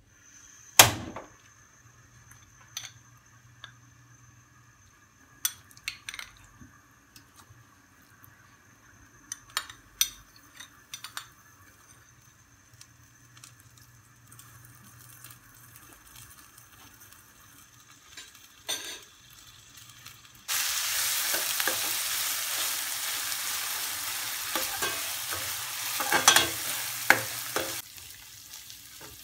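Ginger-garlic paste frying in a stainless steel frying pan: a loud sizzle starts suddenly about two-thirds of the way through, with a metal spoon scraping and clinking against the pan as it is stirred. Before that come scattered sharp clinks of metal on metal, the loudest a knock near the start.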